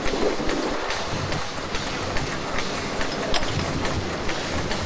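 Model steam engines and a steam pump running off a wood-fired boiler: a steady, even clicking, several strokes a second, over a continuous low rumble.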